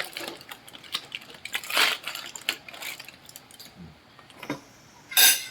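Scattered light clicks and clatter of dishes and cutlery being handled, with a short loud rush of noise near the end.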